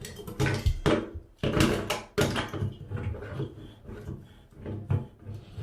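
Locking pliers clamped on a sink drain strainer and turned to tighten it: a run of sharp metal knocks and scrapes, loudest in the first two seconds, then quieter handling.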